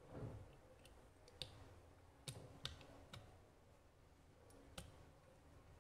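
Several faint, sharp metal clicks, spread irregularly over a few seconds, as the side plate of a Rossi .38 revolver is worked tilted into the frame and pushed forward to seat its small step.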